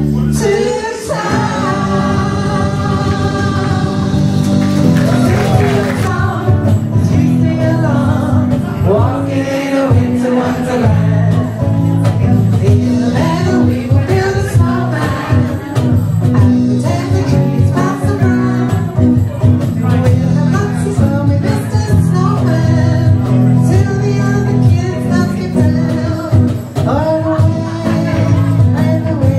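Live band music: an amplified semi-hollow electric guitar with a steady bass line underneath, and a woman singing lead into a microphone.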